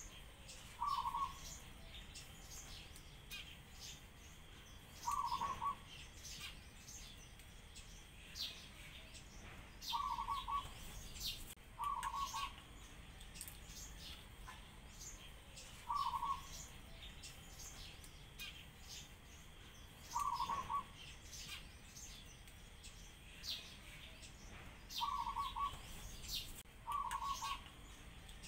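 A dove repeats short coos, each about half a second long, eight in all, a few seconds apart, over frequent high chirping of sparrows.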